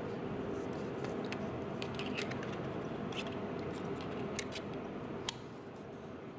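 Scattered light metallic clicks and small taps from the stainless steel parts of a rebuildable tank atomizer being handled in the fingers, over a steady faint hiss.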